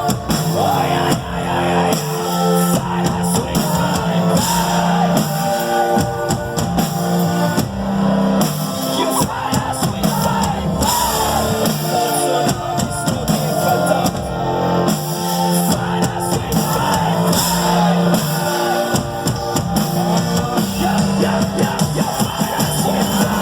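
Rock band playing live, with electric guitars and a drum kit, and a singer's wavering vocal line over them.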